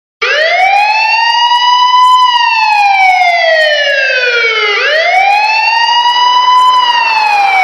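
Vehicle siren on a slow wail: the pitch rises over about two seconds, falls more slowly for over two seconds, then rises again and starts another fall near the end.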